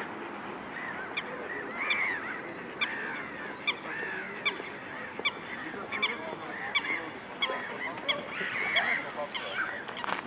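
Waterfowl on a pond honking, a string of short calls that rise and fall, loudest about two seconds in and again near the end. Through them runs a sharp tick a little more than once a second.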